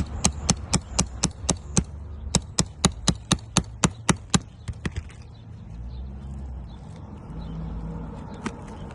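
Hammer tapping steel, likely a flat pry bar worked under a roof shingle to loosen the old nails. The sharp taps come about four a second in two runs of seven to nine, with a short break near two seconds, and stop at about five seconds.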